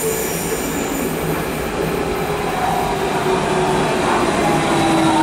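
Berlin S-Bahn class 481 electric train pulling into the station. Its running noise grows louder as it nears, and a whine falls in pitch in the second half as it slows.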